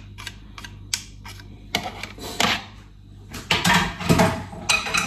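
Scattered clicks and knocks of kitchen handling: a spatula scraping and tapping inside a food processor's plastic bowl of minced chicken, with a few louder knocks about midway and near the end.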